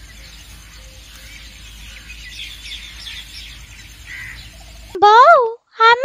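Faint birds chirping over a low steady hum, as background ambience. About five seconds in, a loud, high-pitched cartoon child's voice starts speaking.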